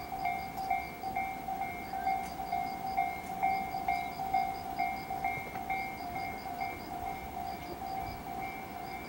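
Japanese railway level-crossing alarm ringing: an electronic bell dinging steadily about twice a second, the warning that a train is approaching the crossing.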